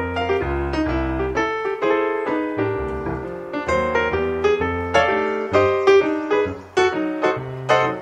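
Background piano music: a flowing run of notes over lower bass notes.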